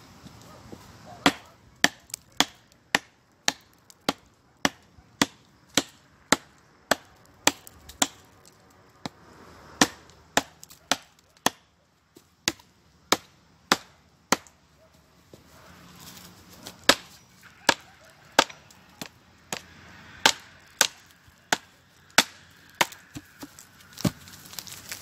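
Firewood being chopped: sharp blows of a blade into wood, about two a second, with a brief pause about halfway through.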